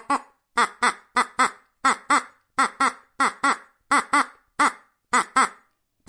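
A duck quacking over and over: short, loud quacks, mostly in quick pairs, about a dozen and a half in all.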